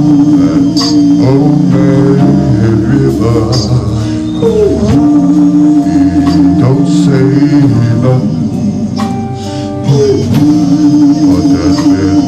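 Live Motown-style R&B music: a male lead singer sings over a band with electric guitars and drums, with long held notes.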